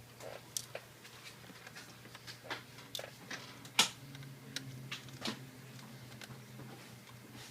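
Faint, scattered small clicks and light taps of a screwdriver and tiny screws while a laptop's motherboard screws are being taken out, with one sharper click a little before the middle, over a low steady hum.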